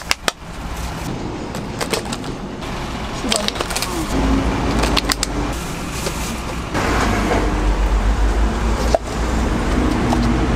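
Steady street traffic rumble, louder from about seven seconds in, with scattered short clicks and taps of clear plastic cups being handled.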